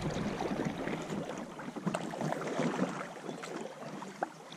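Kayak paddle strokes in river water: irregular splashing and dripping from the paddle blades, with a sharper click just past four seconds.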